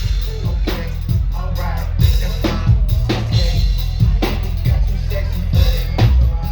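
Live band music at loud volume: a drum kit pounds out the beat with hard kick and snare hits over heavy, booming bass.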